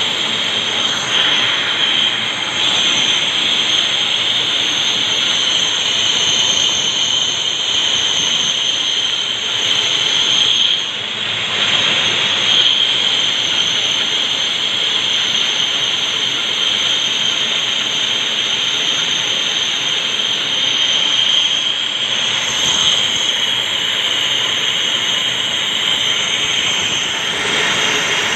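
Metal lathe cutting stainless steel: a steady hiss of machining with a high whine over it, briefly dropping about eleven seconds in.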